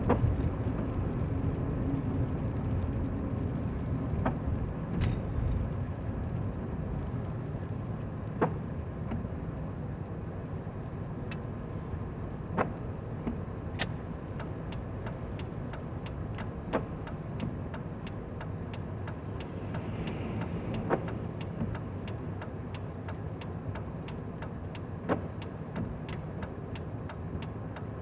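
Steady low rumble of a car heard from inside the cabin while driving, with a single sharp click every four seconds or so. About halfway through, a turn-signal indicator starts ticking fast and evenly, about three clicks a second.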